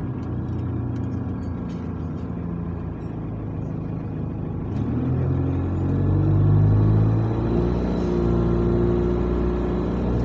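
Bus engine heard from inside the passenger saloon. Its note is low and steady for the first few seconds, then climbs about halfway through as the revs rise, and holds higher to the end. Faint rattles tick over it.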